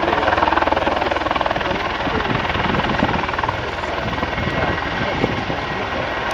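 Helicopter flying, its rotor blades beating in a rapid, steady chop, loudest in the first second or so.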